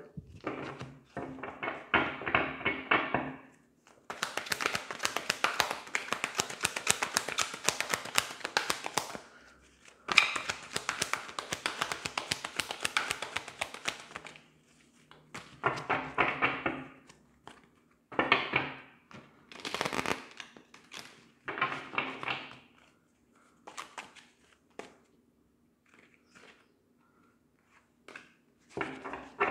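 Tarot cards being shuffled, with two long runs of quick card flicks, then a handful of shorter shuffles and cards slapped down onto the cloth.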